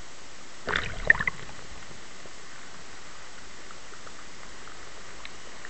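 Water splashing against a waterproof camera held in the surf: a short burst of crackling splashes about a second in, over a steady hiss.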